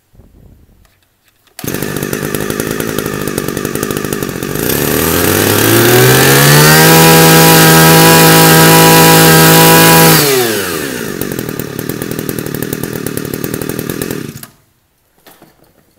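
Robin LP231 23cc two-stroke brush cutter pull-started, catching about a second and a half in and idling. It is then revved up to full throttle and held there for a few seconds, drops back to idle, and is switched off near the end. The exhaust note is crisp.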